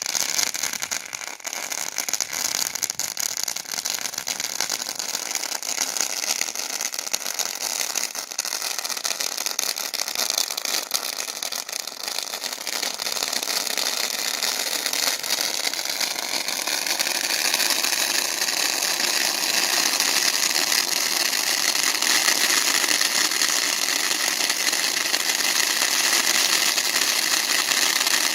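Two jumbo crackling cone fountains burning together: a steady, loud hiss of spraying sparks full of dense, fine crackle, growing somewhat louder about two-thirds of the way through.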